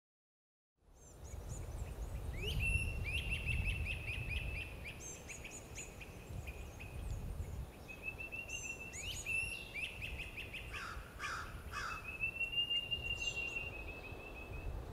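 Birds calling outdoors, fading in about a second in: runs of quick, high chirping calls, with three short lower calls about eleven seconds in, over a steady low rumble.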